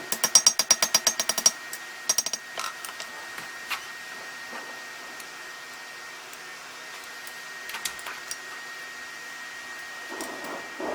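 Rapid, evenly spaced hammer blows on steel at an anvil, about seven a second with a bright metallic ring, shaping the knife's scroll; the run stops about a second and a half in, a couple more blows follow, then only a few light scattered taps.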